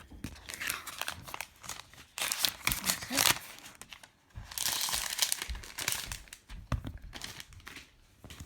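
Packaging crinkling and tearing in several bursts as an iPad Mini 4 is unwrapped and lifted out of its box, with a few light clicks and taps between them.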